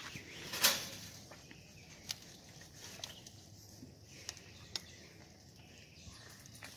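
Goats jostling against a wire fence: one sharp knock about half a second in, then scattered light clicks and taps.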